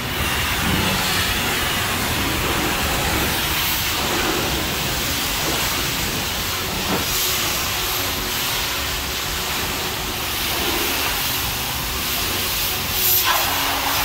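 Steady hiss of high-pressure water spraying from a self-serve car-wash wand.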